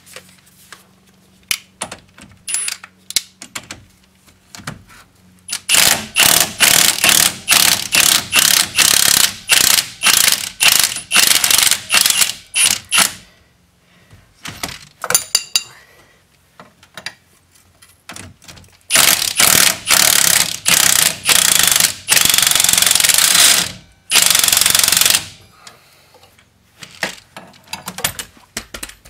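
Milwaukee cordless impact wrench hammering on a Subaru's rear strut mounting bolts to break them loose: a quick series of short trigger bursts, then after a pause two longer runs of steady hammering. Light clicks of the tool being handled come between.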